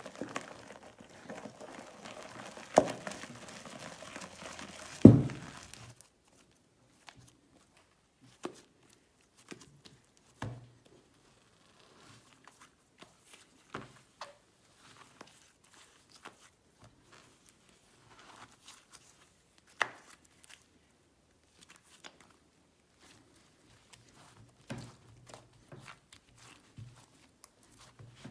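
A spoon stirring slime mixture in a metal bowl: steady scraping with two sharp knocks, the second the loudest, stopping abruptly about six seconds in. Then slime being kneaded and pressed on a powdered plastic sheet: scattered soft squishes and crinkles with quiet between them.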